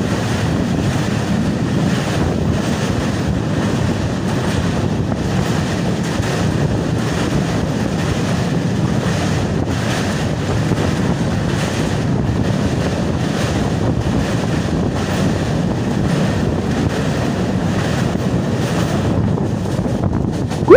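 Steady rushing of wind buffeting the microphone over the running noise of a train crossing a river bridge. A brief loud sound comes right at the end.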